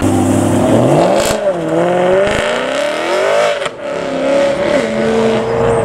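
BMW E92 M3's V8 engine accelerating away hard, its pitch climbing with the revs and breaking sharply near four seconds at an upshift, then holding a steadier note.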